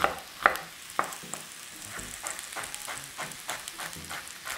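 A chef's knife dices a red onion on a wooden cutting board: a few separate chops in the first second and a half, then a quicker run of lighter taps. Under them, sweet potato slices sizzle steadily in an oiled grill pan.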